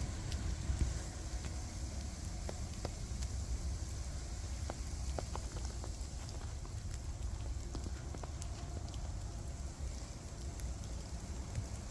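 Outdoor winter-storm ambience: wind rumbling on the microphone, with scattered light ticks of precipitation hitting surfaces.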